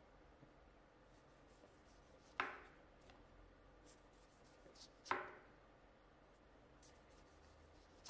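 Chef's knife slicing a tomato into rings on a bamboo cutting board: two sharp knocks, about two and a half seconds apart, as the blade comes through each slice onto the wood, with faint light ticks of cutting between.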